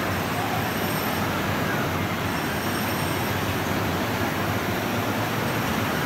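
Disneyland monorail train running along its concrete beam: a steady, even rumble with no separate knocks or changes.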